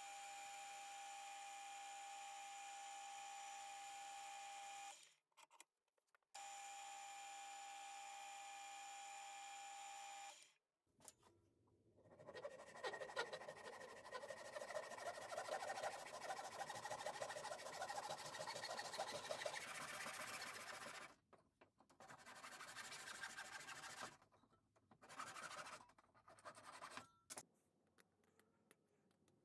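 Wood lathe motor running with a steady whine while a turned wooden handle is sanded; it stops and restarts once, then stops. Then a Japanese pull saw cuts through a wooden block in a vise with rapid rhythmic strokes for about nine seconds, followed by a few shorter bursts of cutting.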